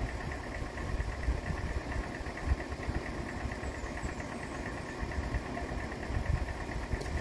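Excavator's diesel engine idling: a steady low rumble.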